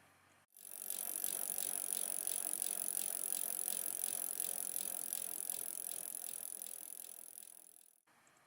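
A mountain bike being ridden on a dirt trail, with steady rolling and rattling noise from the tyres and bike. It fades out near the end and then cuts off.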